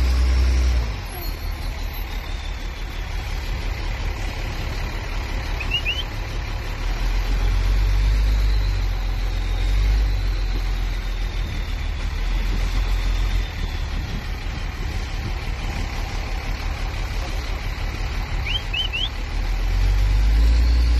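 Low, steady engine rumble of a slow-moving farm vehicle hauling a harvest trailer, swelling and easing a little over time.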